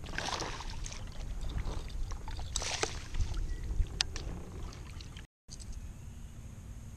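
Water splashing beside a kayak as a striped bass is scooped into a landing net: two splashy bursts, about half a second in and near the middle, then a few sharp knocks of handling.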